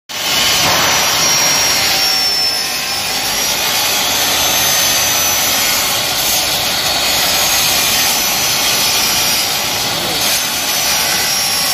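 Makita LS1018L sliding compound miter saw running at speed, its blade cutting into a large PVC pipe as the pipe is turned against it. A steady, loud motor-and-blade noise with a high whine over it starts at once.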